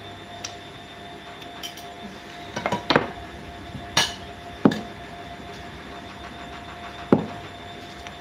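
A few sharp knocks and clicks: a quick cluster about three seconds in, then single ones about a second, a second and a half and four seconds later. A faint steady tone runs underneath.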